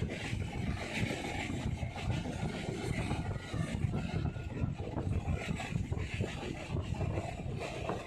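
Moving passenger train running: a steady low rumble of the carriage and wheels on the track.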